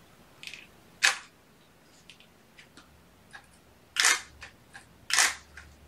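DSLR camera shutter firing three times, sharp clicks about a second in, at four seconds and just after five seconds, with a few faint ticks between them.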